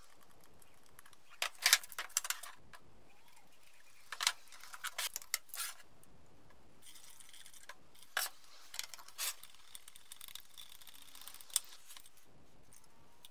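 Metal paint tins being handled on a wooden workbench: several groups of clinks, knocks and rattles, with a faint hiss for a few seconds in the middle.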